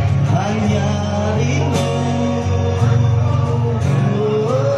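A song with a sung melody over guitar and bass accompaniment.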